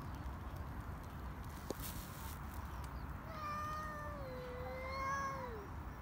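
A cat yowling at a rival cat: one long, drawn-out call of nearly three seconds, starting a little over halfway through, holding near one pitch and dropping away at the end.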